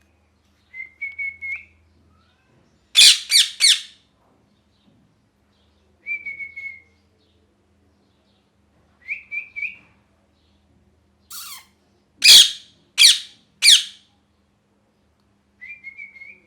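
Ringneck parrot calling: short runs of quick, high chirps alternate with loud, harsh screeches, which come twice in sets of three, each set about a second long.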